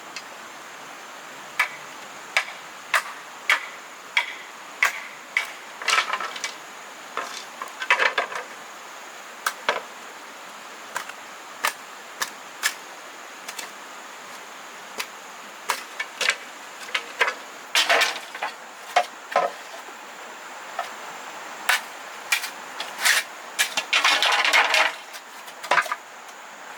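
Sharp knocks of a tool striking bamboo, about one and a half a second in runs with short pauses, broken a few times by longer rustling scrapes.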